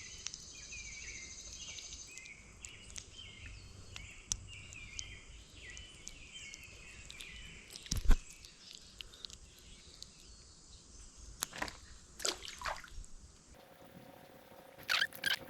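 Outdoor creekside ambience with a songbird singing short repeated chirping phrases for the first several seconds. A single sharp knock about eight seconds in, then a few shorter clicks and knocks near the end.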